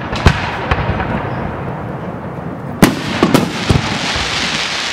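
Aerial firework shells bursting in a display finale: a sharp bang about a quarter second in, then three more bangs in quick succession about three seconds in, with the display's noise continuing between them.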